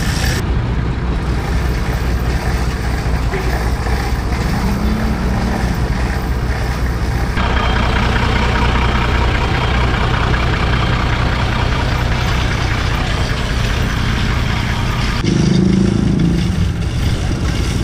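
Old tow truck's engine idling steadily, a continuous low drone.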